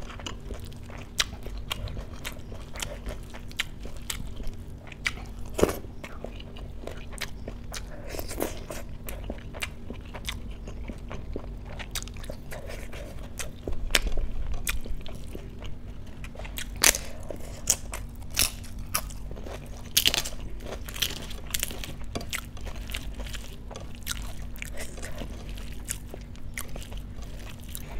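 A person chewing and crunching food close to the microphone, with frequent sharp, crisp crunches and mouth sounds scattered throughout.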